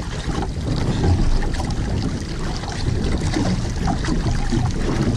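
Wind buffeting the action camera's microphone in a steady low rumble, with choppy waves splashing against a small outrigger boat's hull.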